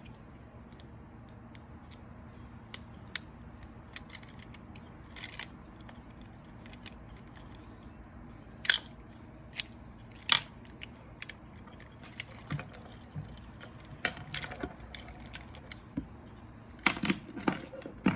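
Irregular clicks, knocks and clatter of small parts and tools being handled, with a few louder clacks and a quick cluster of them near the end.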